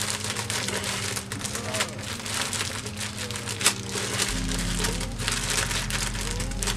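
Thin plastic cookie bag crinkling and crackling as the Nutty Buddy cookies inside are crushed by hand into small pieces, with one sharp crack a little past halfway. Background music with a bass line plays underneath.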